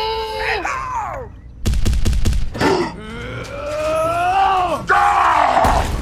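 Comic cartoon voice sound effects: a short wavering whine, then a clatter of quick knocks about two seconds in, then a long groaning voice that rises and falls, ending in a short rush of noise.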